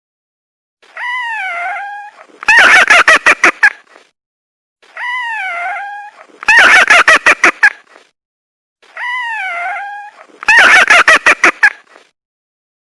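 An animal call played three times, about four seconds apart: each time a wavering pitched call, then a louder run of about seven quick, sharp pulses.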